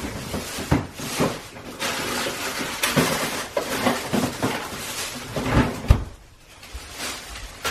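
Plastic shopping bag rustling and packages knocking as groceries are packed into a pull-out refrigerator drawer, with a heavy thump about six seconds in as the drawer is shut.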